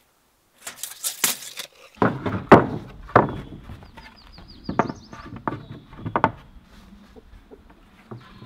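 Loose pine boards being set down and shifted on a steel trailer frame, knocking against each other and the frame in a series of sharp wooden knocks. There is a brief rattle near the start.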